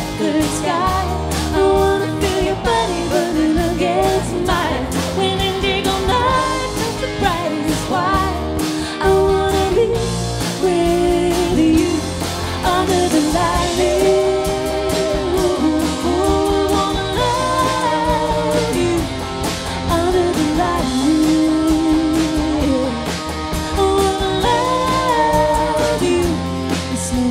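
Live band playing a pop-rock song: a woman singing over strummed acoustic guitar, electric bass guitar and drum kit.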